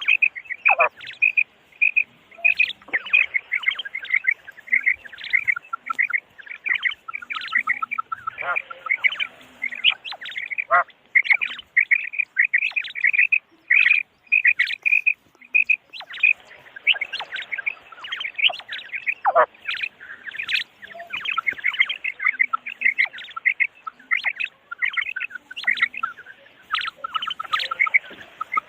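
Common quail calling: a dense, unbroken run of short repeated notes, with a few brief falling notes now and then.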